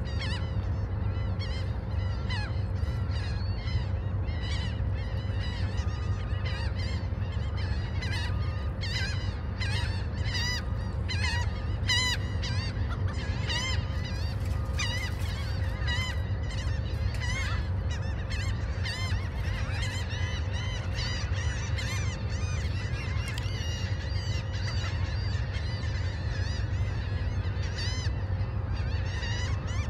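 Gulls calling over and over, many short, overlapping cries that are busiest in the middle stretch, over a steady low rumble of gentle surf at the shoreline.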